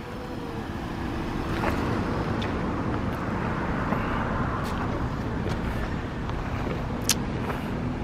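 A car's engine running with steady vehicle noise, building over the first couple of seconds and then holding, with a sharp click about seven seconds in.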